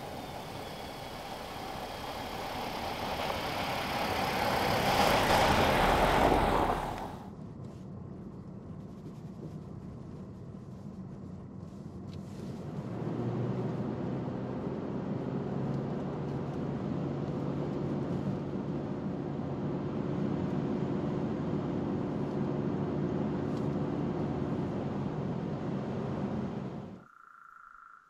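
Honda CR-V with a roof cargo box driving along a snow-covered road, its tyre and engine noise rising as it comes closer, then cut off. About halfway through, a steady engine and road hum heard from inside the moving car.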